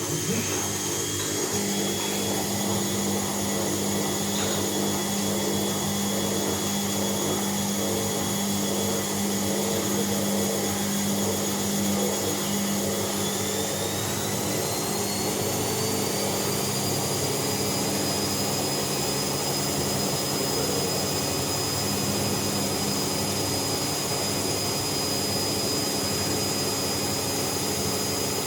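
Bauknecht WAS 1400 washing machine spinning: a steady high motor whine over a low hum and rumble. The whine rises in pitch about halfway through as the drum speeds up, then holds.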